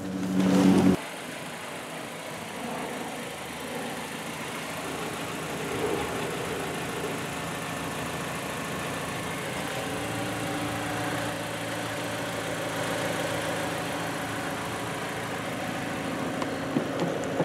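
A 2014 Mazda 3's 2.5-litre Skyactiv-G four-cylinder engine idling steadily, after a brief louder noise in the first second. A few light clicks come near the end.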